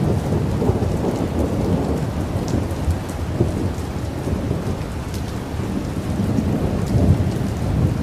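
Rain falling steadily under a continuous low rumble of thunder, with scattered sharp drop ticks; the rumble swells about seven seconds in.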